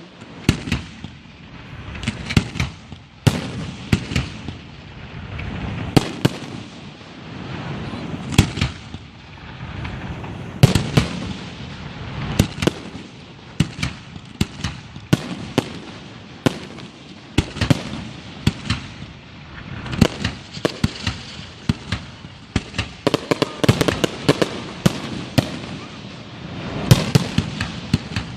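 Fireworks display going off: a dense, irregular run of sharp bangs and crackling reports, often several a second, over a steady low rumble of echoing blasts.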